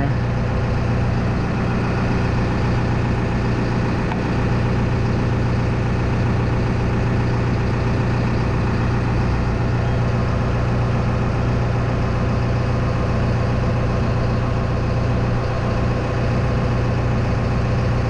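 Tadano 80-4 crane's diesel engine running steadily at idle, with the air conditioning working on max AC.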